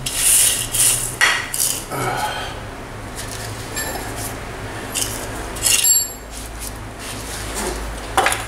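Scattered metallic clinks and knocks, some with a short ringing, as a motorcycle wheel with its brake disc is handled, turned over and laid flat on a concrete floor during wheel-bearing work.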